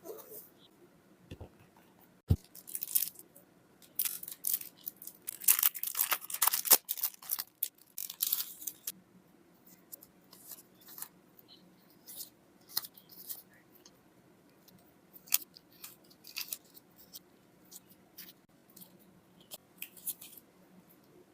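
Unboxing handling noise from the packaging and contents of a journal kit: a quick run of short, crisp rustles and snaps, densest from about four to nine seconds in and then scattered. Two soft knocks come near the start.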